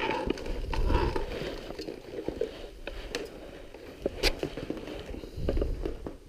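Handling noise as an electrical cord is unwound and pulled free: rustling and low thumps, with scattered sharp clicks and knocks, the sharpest about four seconds in.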